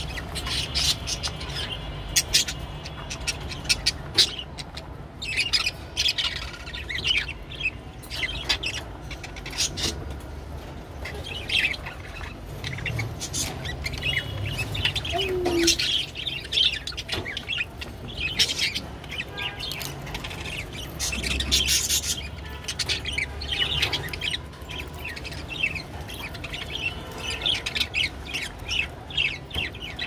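Budgerigars chattering, a busy run of short, high chirps and tweets with the odd squawk.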